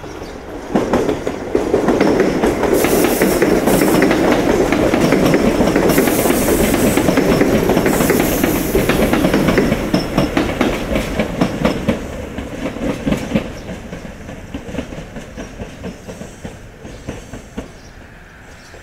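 Tobu Tojo Line electric commuter train running past close by, its wheels clacking over rail joints and points. The sound swells about a second in, stays loud for around ten seconds, then fades as the train draws away, the clacks thinning out toward the end.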